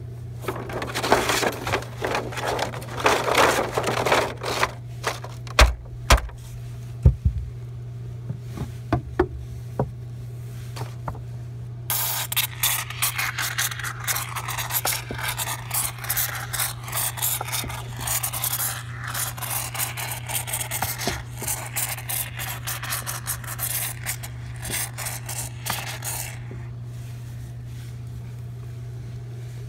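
Scraping and rubbing as a plastic ventilation baffle is worked into a rafter bay against the roof sheathing and rafters, with a few sharp knocks in the middle and a long stretch of crackling, rustling handling noise later on. A steady low hum runs underneath.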